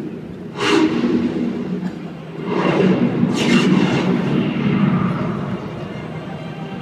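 Intro sound effects over an arena's public-address system: a steady low rumble with three loud whooshing surges, about half a second, two and a half and three and a half seconds in.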